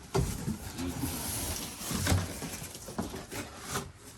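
Cardboard box and plastic packaging rustling, with scattered knocks and thuds, as the box's contents are rummaged through.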